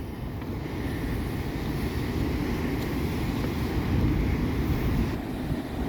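Rough ocean surf breaking in a steady wash of noise, with wind buffeting the microphone. It swells a little about four seconds in.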